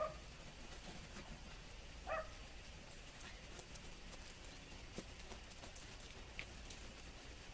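A small dog barks twice, about two seconds apart, while it runs an agility course. Light pattering of running feet on wood chips follows.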